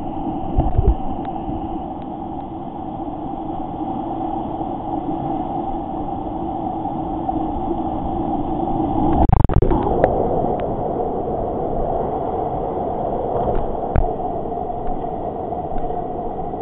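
Steady rush of whitewater around a kayak in a narrow rock gorge, with a few thumps and splashes of the paddle and boat; the loudest comes about nine seconds in.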